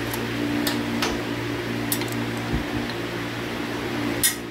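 Electric workshop fan running with a steady motor hum and airflow noise. Several short clicks and knocks break through it, the sharpest near the end.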